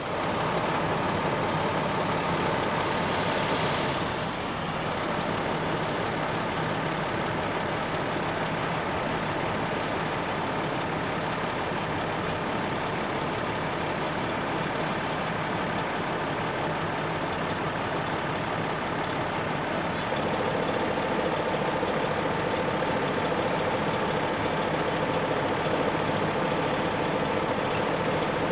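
A heavy vehicle's engine running steadily, with a faint steady hum that drops lower about two-thirds of the way through.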